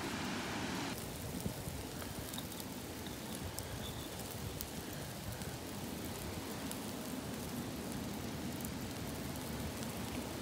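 Wood fire of glowing charcoal embers crackling steadily, with scattered small pops.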